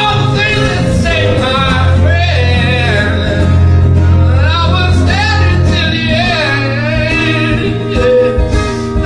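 A song: a singing voice over instrumental backing with a steady low bass line.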